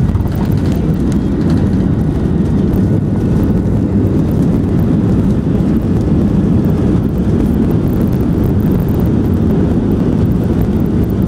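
Steady low roar heard inside the cabin of a Boeing 737-700 in its landing rollout, from its CFM56 engines and its wheels on the runway, a little louder from about a second in.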